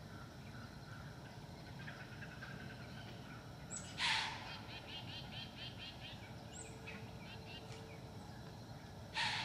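White-tailed doe snorting twice, each a short sharp blast of air, about four seconds in and again near the end: the alarm blow deer give when wary of something.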